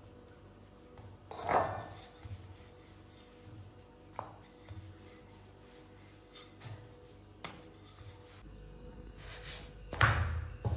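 Hands pressing a ball of paratha dough flat on a floured countertop, with a few knocks and thumps of kitchen handling, the loudest about a second and a half in and another near the end.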